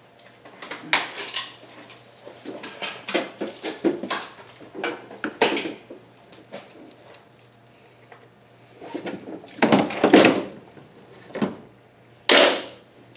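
Metal hand tools clattering and knocking as a toolbox drawer is rummaged through for a 10 mm socket, with a short scraping slide near the end.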